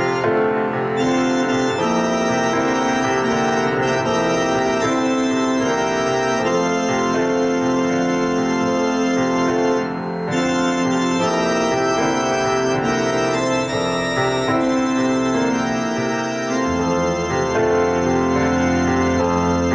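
Organ playing sustained chords as the closing music of a church service, with a deep bass note coming in about three quarters of the way through.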